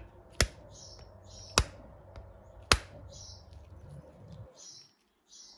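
Three light, sharp taps about a second apart, driving a new filter into a fuel injector until it sits flush. Birds chirp repeatedly in the background.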